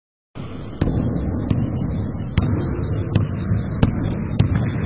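Basketball bouncing on a hardwood gym floor, sharp irregular thuds, with short high sneaker squeaks and the low rumble of players moving on the court.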